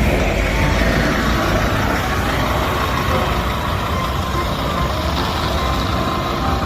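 A steady, even rumbling noise with a faint hum, unbroken throughout.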